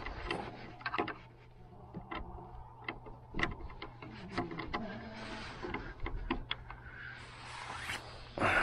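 Hand screwdriver backing out a small T20 Torx screw from a motorcycle windscreen mount: a run of light clicks and taps of the bit and screw, with brief rustles of handling about five seconds in and near the end.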